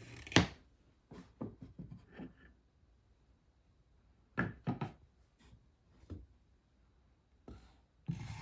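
Wooden marble-run pieces being handled and cleared away: scattered knocks and clatters of wood with some rubbing, in small clusters separated by quiet gaps.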